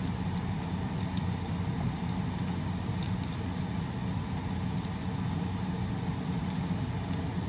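Onions and garlic sautéing in oil in a frying pan, with a faint, scattered crackle over a steady low hum.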